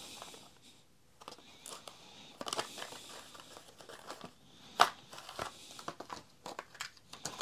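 A clear plastic blister pack and its cardboard backing crinkling and rustling as they are pulled apart by hand to unpack a folding utility knife, with a sharper plastic snap a little under five seconds in.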